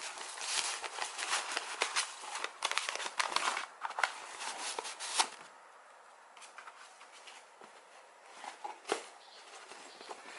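Shredded paper filler and tissue wrapping rustling and crackling as a canvas tote bag is unwrapped and lifted out of a cardboard box. The crackling is busy for about the first five seconds, then drops to a few softer rustles and handling noises.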